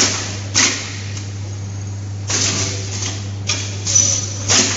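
Firecracker-making and packing machine running: a steady low hum with short hissing bursts at irregular intervals, about six of them, some with a brief high whistle.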